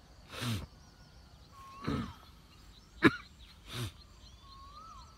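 Three short breaths close to the microphone and a sharp click just after three seconds in, the loudest thing heard. Behind them, two short whistled bird calls that rise and then fall, and faint high chirping.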